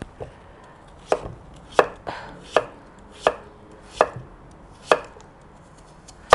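Kitchen knife slicing through raw pumpkin and knocking on a wooden cutting board, a steady series of cuts about one every three quarters of a second.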